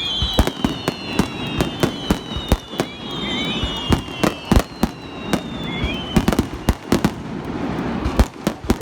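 Fireworks bursting in a rapid, irregular string of sharp bangs. Whistling tones glide slowly down in pitch over the first six seconds, with short rising whistles among them.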